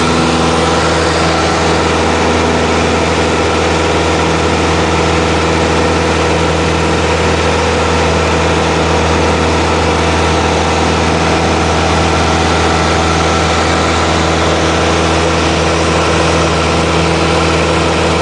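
Steady drone of a light aircraft's engine and propeller, heard from inside the cabin during the climb-out after takeoff.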